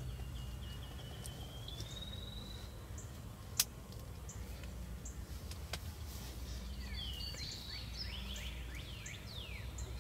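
Songbirds singing in spring woods: a long whistled note that rises slightly over the first few seconds, then a run of quick falling chirps in the second half. A single sharp click comes about three and a half seconds in, over a steady low rumble.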